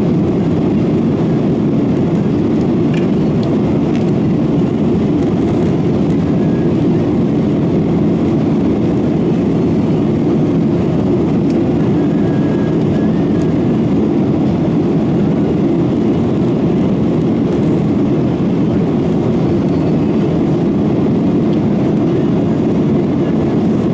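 Steady, even rumble of a Boeing 737-900ER's CFM56-7B jet engines running at a constant setting, with no rise or fall.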